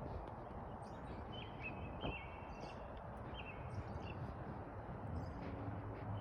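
A songbird singing short, clear, high phrases, repeated about once a second, over a steady low rumble of distant traffic. A low engine hum grows in the second half.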